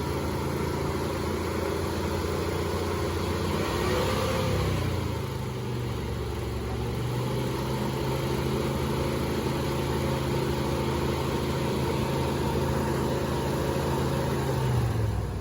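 1985 Chevrolet C10 pickup engine running at idle, its speed shifting briefly about four seconds in and dropping just before the end.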